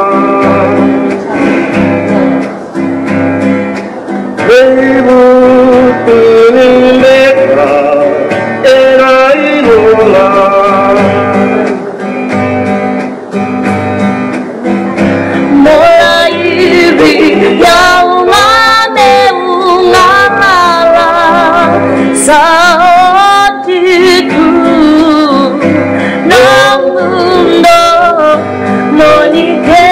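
A woman singing a Fijian song live, her voice wavering with vibrato on held notes, over a steady instrumental accompaniment.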